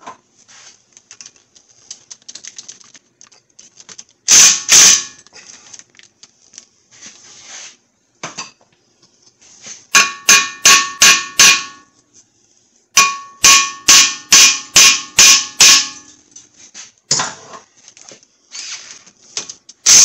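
Steel hammer striking the hub face of a 2011 Ford Fusion's front brake rotor to knock the seized rotor loose. It gives a pair of blows, then two runs of quick blows about three a second, each with a metallic ring.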